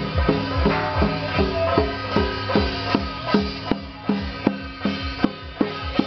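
Temple procession percussion: handheld brass gongs struck with sticks over drums in a steady, even beat of a little under three strokes a second, each stroke leaving a short ringing tone.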